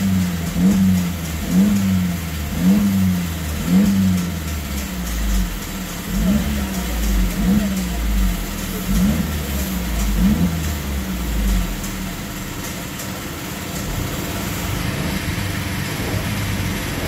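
Mercedes-Benz W204 C250's turbocharged four-cylinder petrol engine, heard from inside the cabin through a valved exhaust, revved in about ten quick throttle blips roughly a second apart, then left to idle for the last few seconds.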